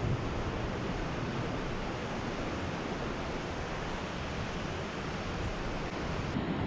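Steady rush of water pouring through a Thames weir in full flow.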